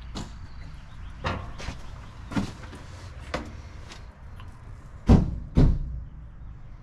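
Doors and latches on a truck body being handled: a string of knocks and clatters, then two loud bangs about five seconds in, as of a door being shut.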